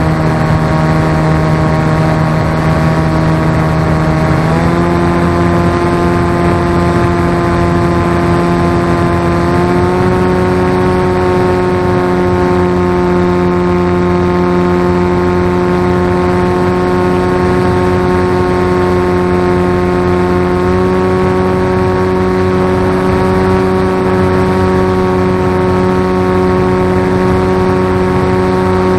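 RC flying wing's motor and propeller heard from the onboard camera: a steady, loud drone made of several tones, stepping up slightly in pitch three times (about 4, 10 and 21 seconds in) as the motor speeds up.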